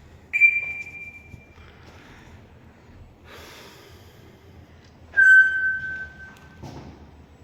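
Two long, steady whistles a few seconds apart, each held at one pitch; the second is lower than the first.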